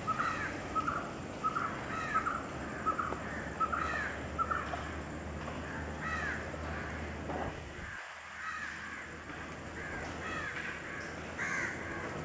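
Birds calling: a quick series of short calls, dense for the first few seconds and then more spaced out, over a low steady rumble that cuts off about eight seconds in.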